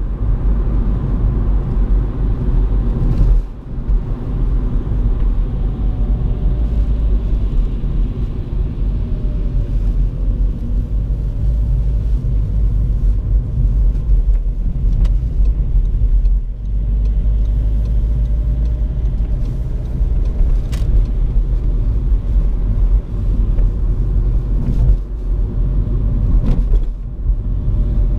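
Inside the cabin of a Seat Ibiza with the 1.6 TDI diesel engine while driving on a wet road: steady low engine and road rumble with tyre noise, dipping briefly about three and a half seconds in and again about sixteen seconds in.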